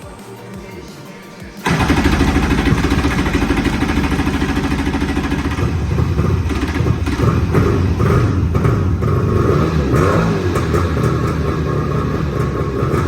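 Kawasaki 650 two-stroke jet ski engine firing up suddenly about a second and a half in and running loudly, with background music underneath.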